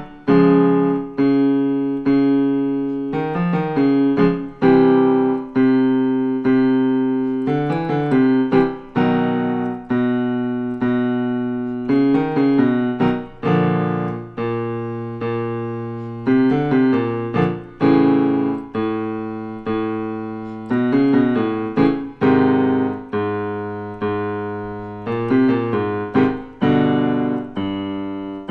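Piano playing vocal warm-up patterns in a low register: short groups of struck notes and chords that repeat, each note fading after it is struck, stepping on to a new pitch with each repeat.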